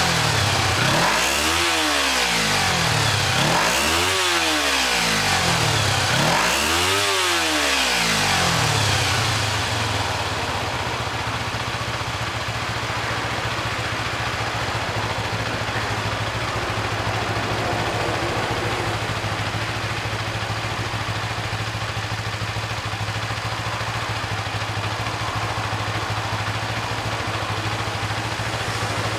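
Kawasaki GPZ250R motorcycle's parallel-twin engine being revved on the throttle about three times, each rev rising and falling smoothly, then settling into a steady idle for the rest of the time. It runs and idles evenly.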